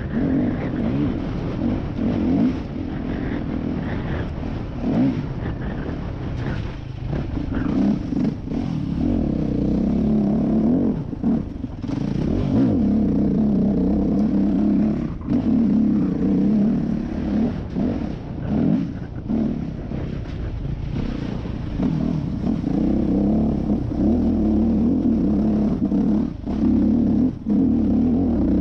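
Yamaha YZ250F dirt bike's four-stroke single-cylinder engine running under load while ridden, its pitch rising and falling as the throttle is opened and briefly shut again and again.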